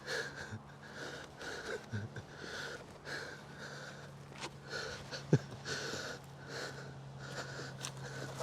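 A person breathing hard and fast through the mouth close to the microphone, wheezy, about two breaths a second, over a steady low hum. A single sharp knock about five seconds in.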